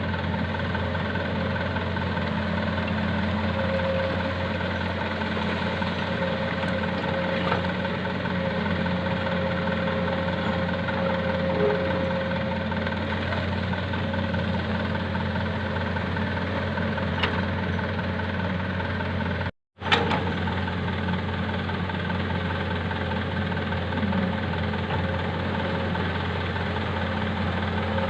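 Diesel engine of heavy equipment running at a steady speed, with a few faint ticks. About two thirds of the way through, the sound drops out for a moment and comes back with a sharp click.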